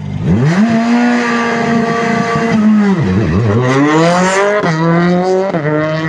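Rally car engine revved up hard from idle and held at high revs, then dropping about three seconds in. It climbs again in a second rising rev and steps down twice near the end.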